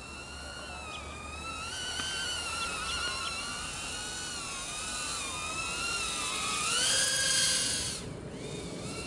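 Micro 1S brushless FPV quadcopter's 0703 motors and 40 mm propellers in flight: a high-pitched whine that wavers up and down with the throttle. It climbs to its loudest about seven seconds in, then drops sharply about a second later.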